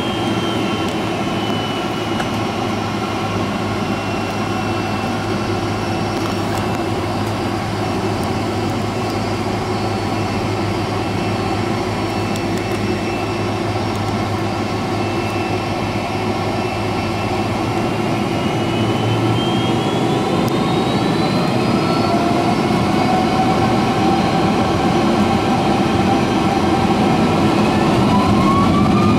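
Boeing 767's Rolls-Royce RB211 turbofan engine heard from inside the cabin during taxi, a steady whine over a low rumble. In the second half its whining tones rise in pitch and it grows a little louder as thrust is added.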